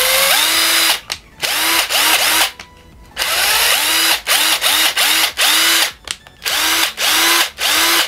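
Hitachi WH 8DH cordless impact driver, a 9.6 V tool running on a 12 V battery pack, spinning with no load. The trigger is pulled in quick repeated bursts, and the motor whines up to speed on each pull, with short gaps between. On the higher voltage the tool runs very strong.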